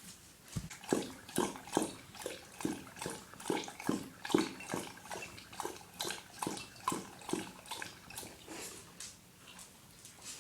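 Dog lapping water from a bowl: a steady rhythm of wet laps, about two and a half a second, starting about a second in and tailing off near the end.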